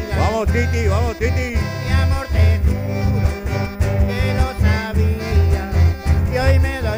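Live band playing an instrumental passage between sung verses: a steady bass beat under a wavering, sliding lead melody.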